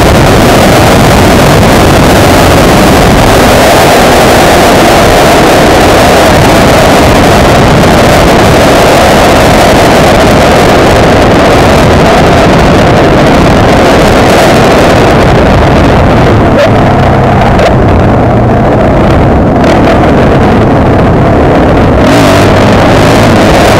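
Suzuki DR-Z400's single-cylinder four-stroke engine running under way, mixed with loud wind rush over the helmet-mounted camera. The high hiss of the wind thins out for several seconds in the second half, leaving the engine note more exposed.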